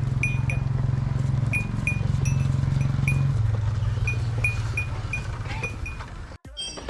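Yezdi B model's single-cylinder two-stroke engine idling while its running condition is checked. Its note drops a little about three seconds in and fades near the end.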